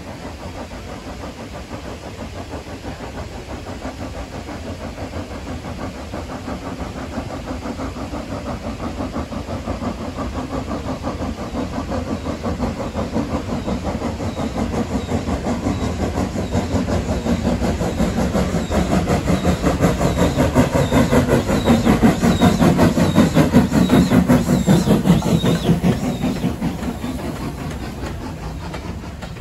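LNER J27 0-6-0 steam locomotive No. 2392 working hard, its exhaust beating in quick, even chuffs that grow steadily louder as it approaches and passes close by. The sound is loudest about three-quarters of the way through, then eases as the tender and coaches roll past.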